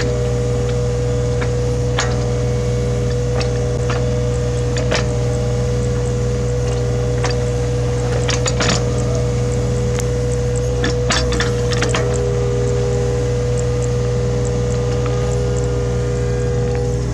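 Hitachi Zaxis 33U mini excavator's diesel engine running steadily with a steady hydraulic whine, and sharp metal clanks and knocks every few seconds as the machine works. The whine shifts in pitch about twelve seconds in.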